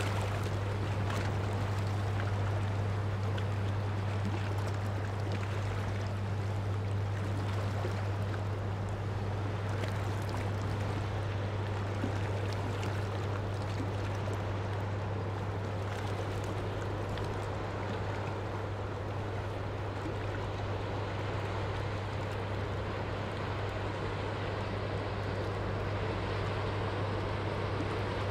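River water lapping and trickling against a stone breakwater, under the steady low drone of a passing ship's engine.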